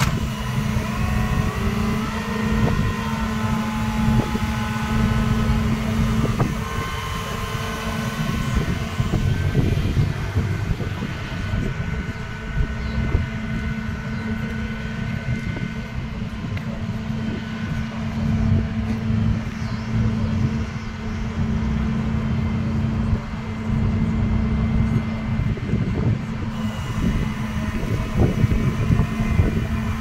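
Flatbed tow truck's engine running steadily with a constant low hum, powering the tilted bed and winch while a car is loaded onto it.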